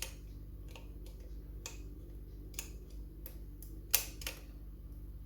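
Small metallic clicks and ticks of a lever-lock pick lifting the levers of a Union 5-lever mortice lock under heavy tension, coming irregularly, with one louder click about four seconds in.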